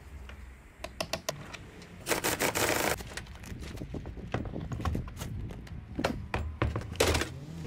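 A power tool runs in short bursts, the longest about a second, amid scattered sharp clicks and metal knocks: the fixings of a lorry's heavy doors being undone.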